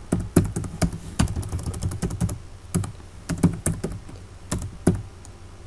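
Typing on a computer keyboard: irregular key clicks, a few a second, with pauses between them.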